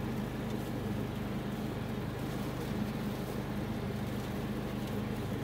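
An engine running steadily at an even speed, a low constant drone with a fine regular pulse.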